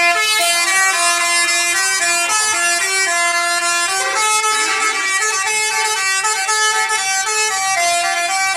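Basuri telolet bus horn, a multi-trumpet musical horn, playing a quick melody of stepped notes that change every fraction of a second, several tones sounding together.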